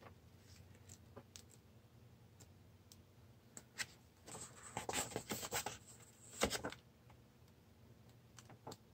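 Pages of a softcover paper catalog being flipped and turned by hand: quiet paper rustles and flaps, busiest from about four to seven seconds in.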